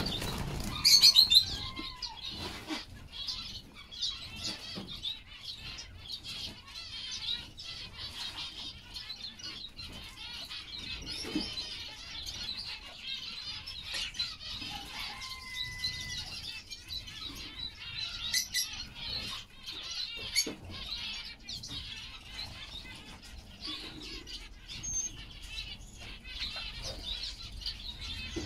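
Small estrildid finches chirping continually in an aviary, with wing flutters and light clicks as birds land and hop on wooden perches. A louder flurry of calls comes about a second in.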